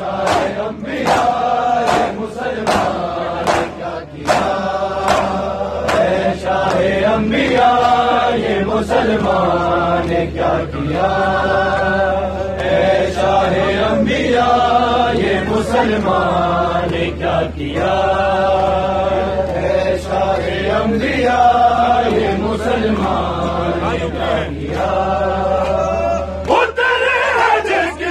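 Crowd of men chanting a noha, an Urdu mourning lament, in unison. Sharp hand slaps on bare chests (matam) keep time at about two to three a second.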